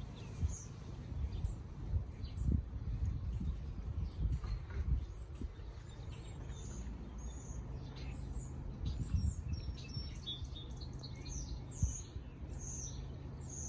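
Small birds chirping in many short, high calls, some rising and some falling, over a steady low rumble with a few brief thumps.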